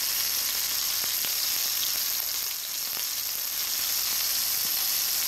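Diced tilapia, chicken and skirt steak with onion sizzling steadily in hot oil in a wok, a constant high hiss.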